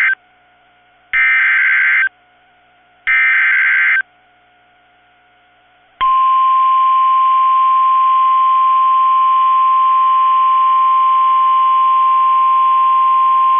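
Emergency Alert System header on NOAA Weather Radio: three bursts of SAME digital data tones, each about a second long and about a second apart (the first already under way), then about six seconds in the steady 1050 Hz warning alarm tone starts and holds. The sequence marks the start of a new severe thunderstorm warning.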